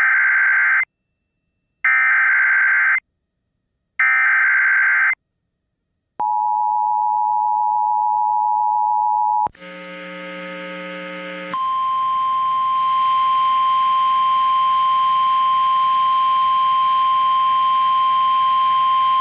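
Emergency Alert System alert tones. Three harsh, buzzy SAME header data bursts come about two seconds apart. They are followed by the steady two-note EAS attention signal for about three seconds. After a short hissy stretch, the single steady NOAA Weather Radio warning tone sounds over hiss, starting about eleven seconds in.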